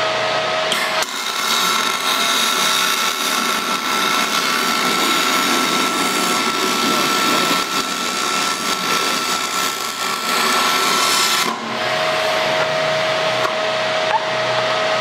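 MIG welding arc on preheated cast aluminum, fed with 0.047-inch Neptune aluminum wire: a loud, steady crackling hiss that starts about a second in and stops about three and a half seconds before the end. A faint steady tone is heard before the arc strikes and after it stops.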